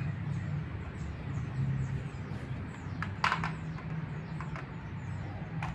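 Outdoor background: a steady low hum with small birds chirping over and over, high and thin. A short clatter comes about three seconds in, with a lighter click near the end.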